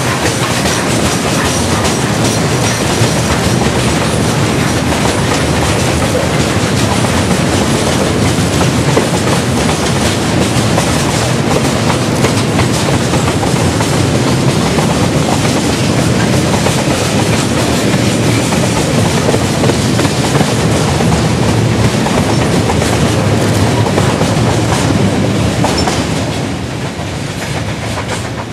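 Open freight wagons of a train rolling past close by, their wheels clattering steadily on the rails; the noise falls away near the end as the last wagon goes by.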